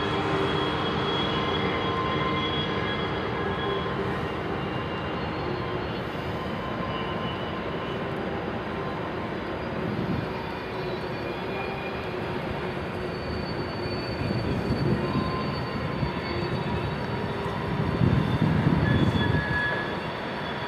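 Freight trains rolling slowly over steel railway bridges: a steady rumble of rail cars with thin, high wheel squeals coming and going. A low hum runs through the first half and fades about ten seconds in, and the rumble swells near the end.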